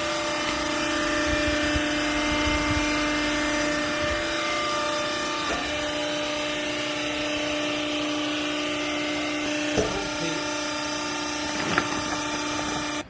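Vertical hydraulic used-clothing baling press running, its hydraulic pump motor giving a steady, loud hum and whine, with a couple of short clicks about ten and twelve seconds in. The hum cuts off abruptly near the end.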